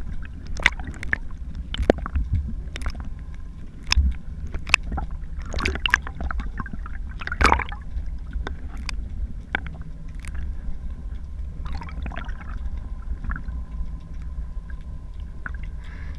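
Muffled underwater sound picked up through a GoPro's waterproof housing: a steady low rumble of moving water with irregular clicks and knocks, the loudest about seven and a half seconds in and fewer after that. A faint steady hum comes in about twelve seconds in.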